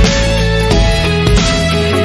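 Background music: guitar-led instrumental with a steady beat and bass.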